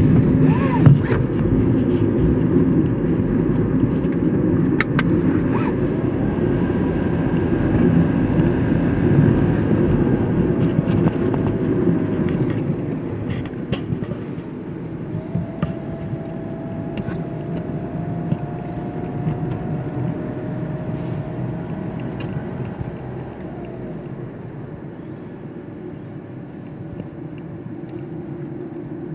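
Car engine and road noise heard from inside the cabin while driving: a steady low rumble that grows quieter through the second half.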